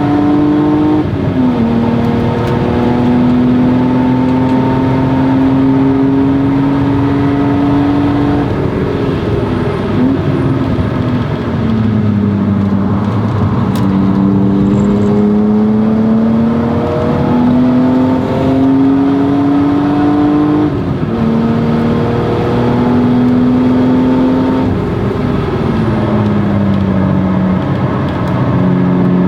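1997 BMW E36 M3's straight-six engine with a Stromung cat-back exhaust, driven hard on track: the engine note climbs slowly through the revs and falls back several times, as at gear changes and lifts for corners.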